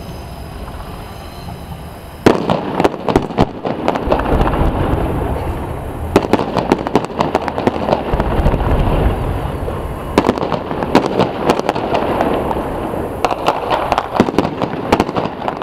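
Fireworks display: a low rumble, then from about two seconds in, dense crackling salvos of sharp cracks and pops that swell again in waves about every four seconds.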